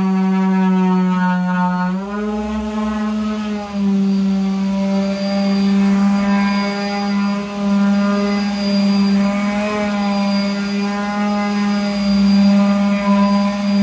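Ozito random orbital sander running on a plywood cabinet: a steady electric motor whine that steps up in pitch about two seconds in and wavers slightly as the pad is worked over the wood.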